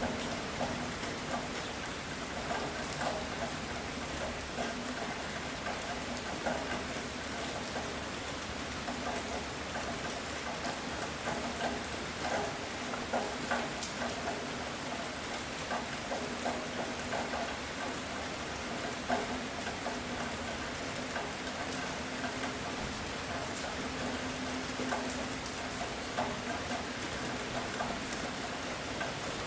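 Heavy rain falling steadily, with many small drops pattering on a surface.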